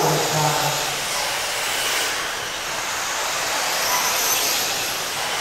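Radio-controlled dirt oval race cars running: a steady rushing noise with high whines that swell and fade as cars go by.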